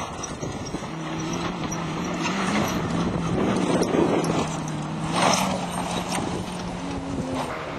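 Off-road 4x4 race vehicle's engine running at fairly steady revs, a continuous hum with a brief change in pitch near the end, over the noise of wind and movement.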